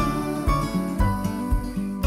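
Background music: guitar over a steady beat, about two beats a second.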